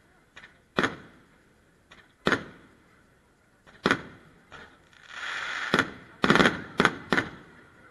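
Aerial firework shells bursting: single sharp bangs about every second and a half, with fainter pops between. About five seconds in comes a hissing rush, then a quick run of four or five bangs near the end.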